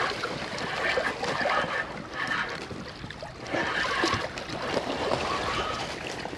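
Shallow seawater washing and lapping over rocks at the water's edge, an uneven rushing noise that swells and eases.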